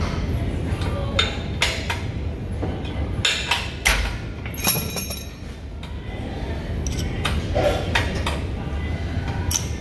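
Cable machine in use: a series of sharp metallic clanks and clinks as the weight-stack plates, cable handle and selector pin knock against the steel frame, some ringing briefly, most in the first half and one more near the end.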